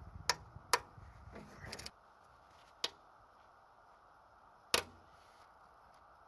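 Ratchet wrench and steel socket working the cylinder head nuts: a handful of sharp metallic clicks spaced irregularly, with a quick cluster of ticks just before two seconds in. A low rustle of handling sits under the first two seconds.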